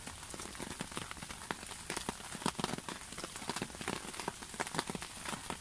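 Steady rain falling on a pond and the plants at its edge, with many irregular sharp drop hits close by.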